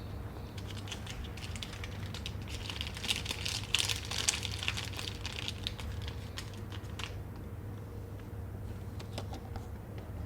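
A run of rapid small clicks and crackles that builds to a dense cluster in the middle and thins out about seven seconds in, over a steady low hum.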